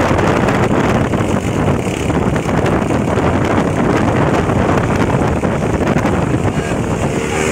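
Motorcycle engines running close by as the bikes ride along, mixed with wind rumbling on the microphone into a loud, steady roar.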